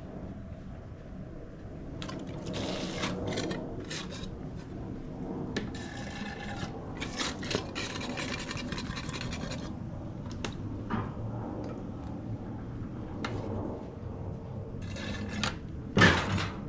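Irregular handling noises: rubbing and scraping with scattered light clatters, and one louder knock near the end.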